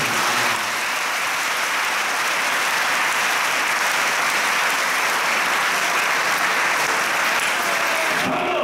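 Audience applauding: steady, sustained clapping from many people, thinning out near the end.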